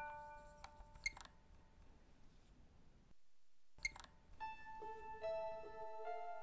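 Soft background music: chime-like mallet notes ring out and fade away. The track cuts out for about half a second just past the middle, then plucked notes start up again.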